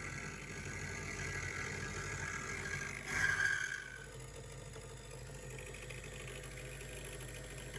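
Handmade CNC milling machine running, with a steady whine from its servo-driven spindle and stepper motors over a low hum. A louder burst lasting under a second comes about three seconds in.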